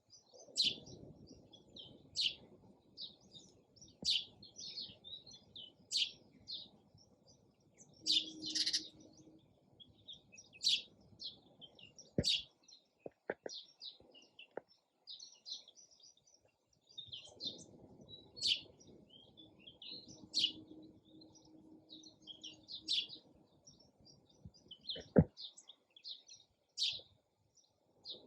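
Sparrow chirping: short, high, bright chirps repeated about once a second. A few sharp clicks come in the middle, and a louder one near the end.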